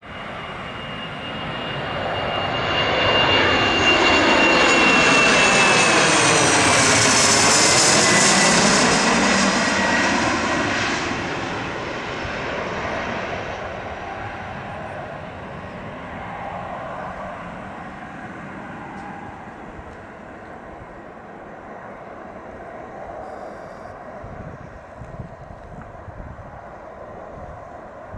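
Embraer ERJ-135 regional jet passing low overhead on final approach, its two rear-mounted Rolls-Royce AE3007 turbofans loudest a few seconds in, with a high whine that falls in pitch as the jet goes past. The sound then fades slowly to a distant rumble as the jet lands and rolls out along the runway.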